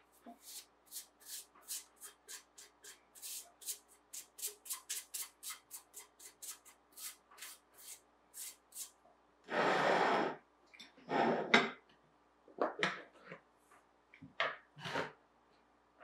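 Silicone pastry brush sweeping excess flour off dough and parchment paper: a quick run of light brushing strokes, then a few louder rustling scrapes in the second half.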